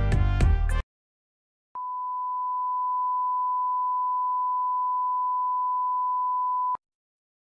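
Background music cuts off abruptly under a second in; after about a second of silence, a steady electronic beep at one pitch sounds for about five seconds and stops abruptly.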